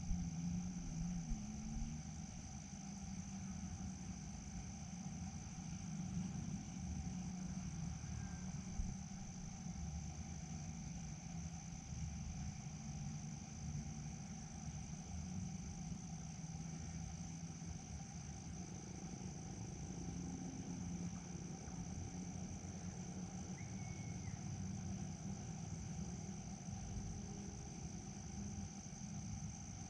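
Steady, continuous chirring of night insects such as crickets, with a low background rumble underneath.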